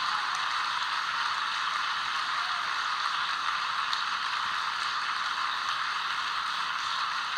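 Steady hiss like static, with no speech or music.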